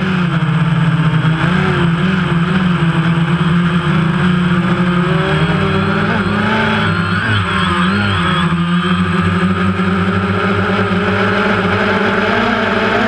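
DJI Phantom quadcopter's four electric motors and propellers buzzing steadily, heard from a camera on the drone itself. The pitch wavers in the middle as the drone banks and turns.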